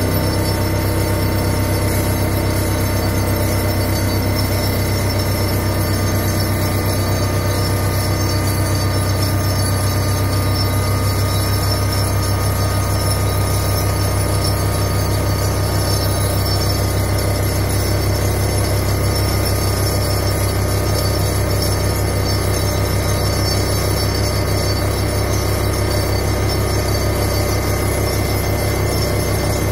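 Hydraulic high-frequency vibratory pile driver running steadily at full speed, vibrating steel sheet piles into the ground: a strong steady low hum overlaid with several constant high whining tones.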